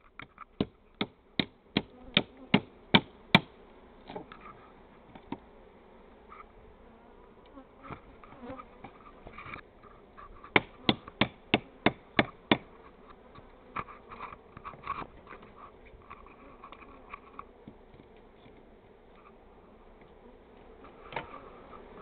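A mass of honey bees buzzing steadily from an opened colony. Over it come two quick runs of sharp knocks, about two or three a second: about eight in the first few seconds and about seven more some ten seconds in.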